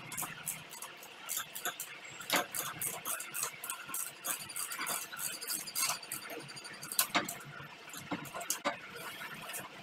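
Sharp metallic clicks and taps, several a second and irregular, from a ratchet and hand tools bolting a motorcycle's rear shock absorber to its mounts.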